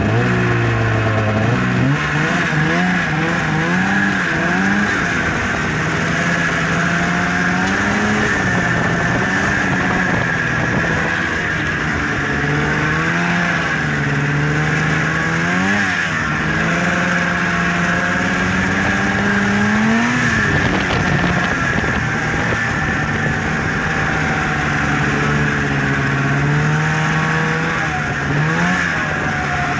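A 1998 Arctic Cat ZL snowmobile's 500 Suzuki two-stroke twin running as the sled is ridden, engine speed rising and falling with the throttle and giving a short rev every few seconds.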